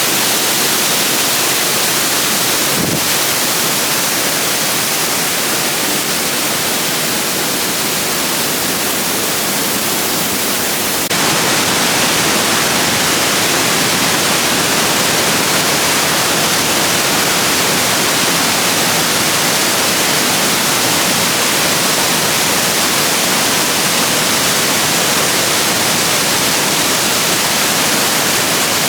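Waterfall, a steady loud rush of falling water that jumps suddenly louder about eleven seconds in.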